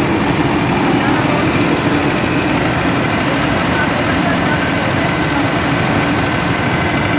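Engine running steadily without load, with the rapid ticking of a tappet noise.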